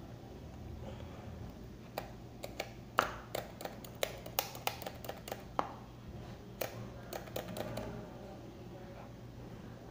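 Light, irregular clicks and taps, several a second for about six seconds, as fingers pick at a new smartphone and its cardboard box tray to work the phone out.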